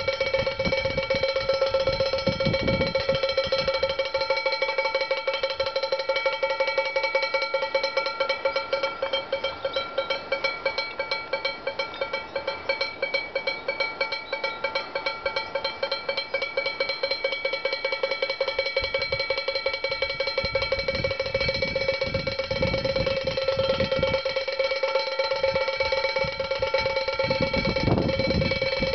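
A chamber pot rung by two wooden clappers on a wind-spun axle, beating on its bottom in rapid, continuous strokes. It gives a steady clanging ring like a cowbell. This is the noise of a traditional homemade bird scarer.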